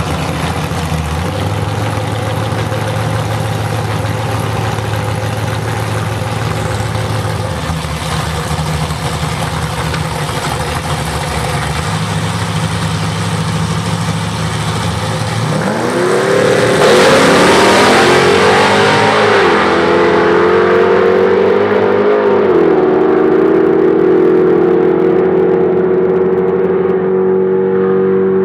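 Two drag-racing cars, one a 1955 Chevy, idling at the starting line, then launching about halfway through: the engines rev up suddenly and stay at full throttle down the strip, with two brief dips in pitch a few seconds apart.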